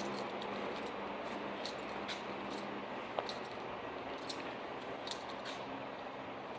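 Steady background noise with a faint low hum, broken by scattered light clicks and ticks.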